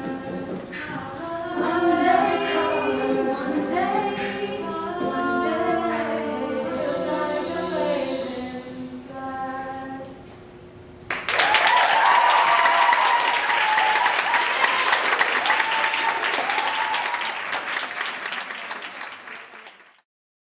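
An all-female a cappella group singing in close harmony, the song ending about ten seconds in. The audience then breaks into loud applause with cheers and whoops, which fades out near the end.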